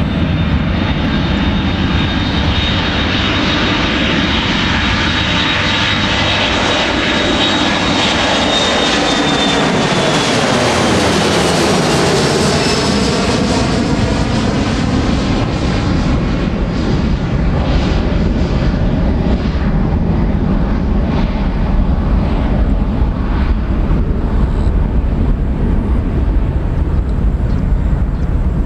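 Boeing 737-500's twin CFM56-3 turbofan engines at takeoff thrust as the airliner rolls, lifts off and climbs past. A high whine holds steady, then falls in pitch as the jet goes by about ten seconds in, leaving a low rumble as it flies away.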